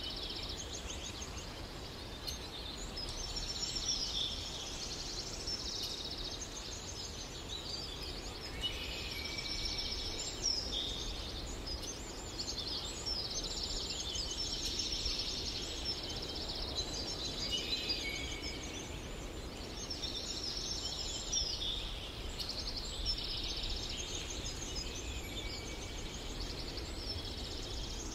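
Birds chirping and trilling continuously, several songs overlapping, over a steady low background noise.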